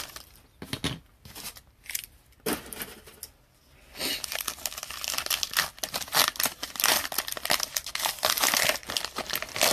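A trading card pack wrapper is handled and torn open. It starts with a few scattered clicks and rustles, and from about four seconds in gives way to steady, dense crinkling.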